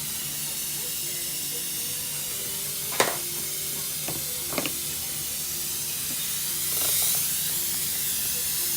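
Steady hiss of dental suction, with a few short sharp clicks (the loudest about three seconds in) and a brief swell in the hiss around seven seconds.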